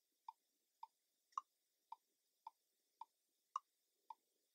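Near silence with faint, even ticking, a little under two ticks a second, every fourth tick slightly louder and higher.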